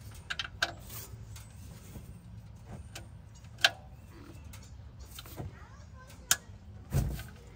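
Socket wrench working a car's oil drain plug: scattered sharp metal clicks and knocks as the socket is fitted and pulled on, the loudest about three and a half seconds in, with a duller thump near the end.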